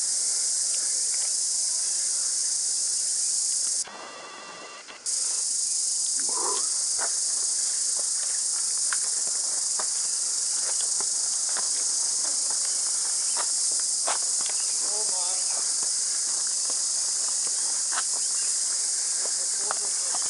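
Loud, steady, high-pitched drone of a cicada chorus. It breaks off about four seconds in and comes back a second later.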